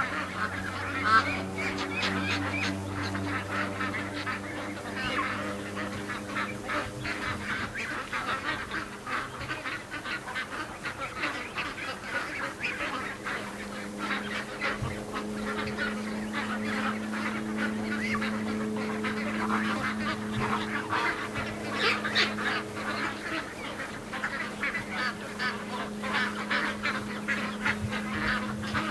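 A large flock of domestic ducks quacking and chattering continuously, many birds calling over one another: a restless flock settling down after being frightened in the night by something going through the yard. A steady low hum runs underneath.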